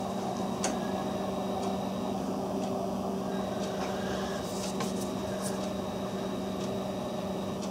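Steady mechanical hum of a running room appliance with a thin high whine, and a few faint clicks and taps from the steel pistols being handled.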